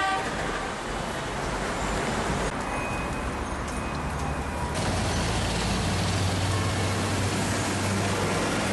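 City road traffic: a steady wash of passing cars and buses, with a low, steady engine hum setting in about halfway through.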